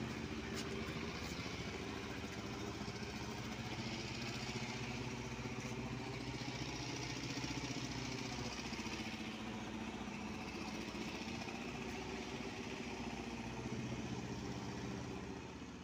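Vehicle engine idling steadily, an even low hum over an open-air noise background.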